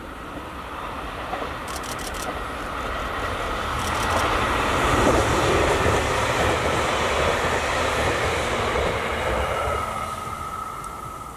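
JR East E721-series electric train passing on the line, its wheels rumbling on the rails: the sound swells as it approaches, peaks as it goes by, then fades as it moves away. A couple of brief clicks come about two and four seconds in.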